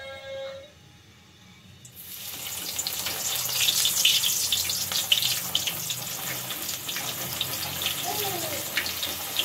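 Soaked chana dal lowered in a slotted spoon into hot oil in a kadhai, the oil sizzling and crackling from about two seconds in and carrying on steadily as the wet dal fries.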